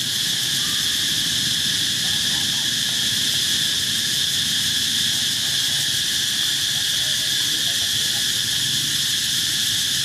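Steady, high-pitched insect chorus: a constant drone with no let-up.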